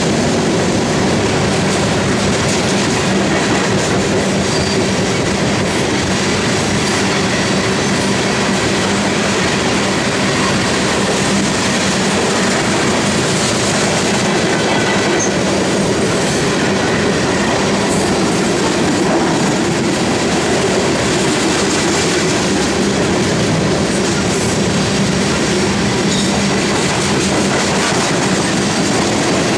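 Loaded coal cars of a long freight train rolling past, a steady rumble and clatter of steel wheels on the rails.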